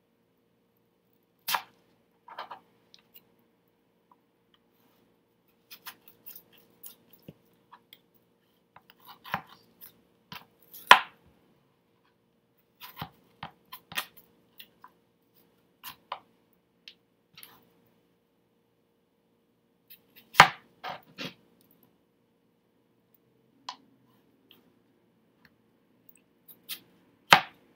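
Kitchen knife cutting cantaloupe on a cutting board: irregular knocks of the blade meeting the board, with a sharper one now and then, the loudest about eleven and twenty seconds in.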